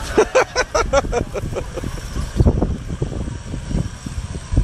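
A 4x4 SUV's engine working as the vehicle crawls over rough, rutted ground. It pulses rhythmically, about five beats a second, for the first second and a half, and after that comes an uneven low rumble with irregular thumps.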